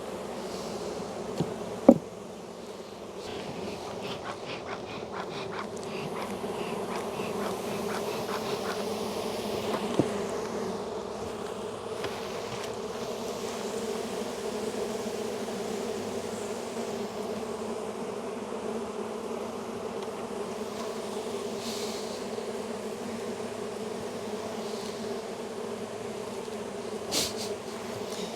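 A crowded honey bee colony buzzing steadily in an open hive. A few sharp knocks cut through it: a loud one about two seconds in, another near the middle, and one near the end.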